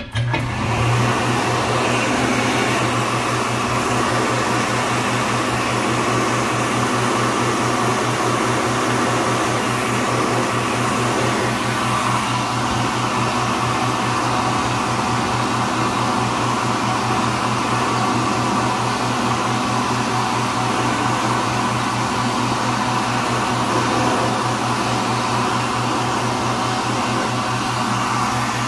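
World Dryer Model A cast-iron push-button warm-air hand dryer starting with a press of its button and running steadily. The blower sends out a rush of air over a steady low motor hum.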